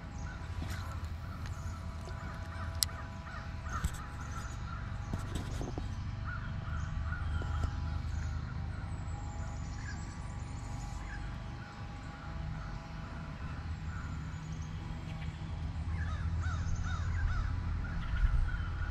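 Birds calling repeatedly in the trees around the pond, short harsh calls over a low steady rumble.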